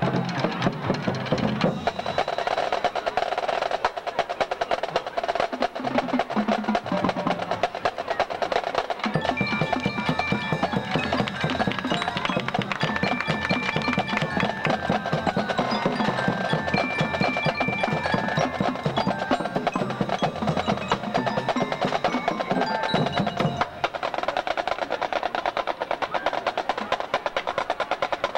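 Marching band drumline of snare drums, tenor drums and bass drums playing a fast, dense cadence, with bass drum strokes heavy through the middle stretch. A few short high ringing notes sound over it.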